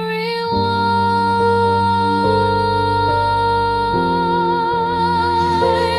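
Song: a female voice holds one long sung note, wavering into vibrato near the end, over soft sustained instrumental chords that change every second or two.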